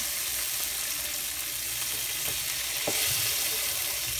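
Spiced fish pieces shallow-frying in hot oil in a nonstick pan: a steady, high sizzle, with a couple of light taps from a plastic spatula turning the fish about two and three seconds in.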